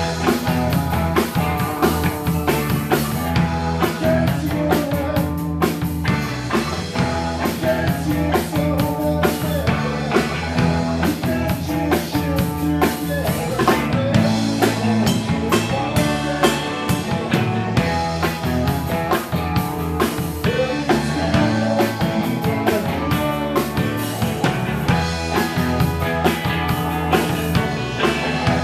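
Rock band playing live, drum kit keeping a steady beat under the full band.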